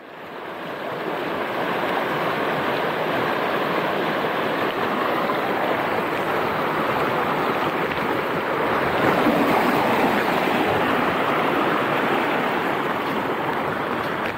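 Water rushing over a rocky ledge in a river: a loud, steady rush that swells over the first couple of seconds and then holds.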